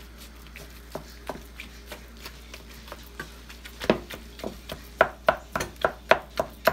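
A wooden spatula chopping and smashing raw ground beef in a frying pan, knocking against the pan. It starts as light, scattered taps, then about four seconds in becomes a quicker run of sharp knocks, about three a second.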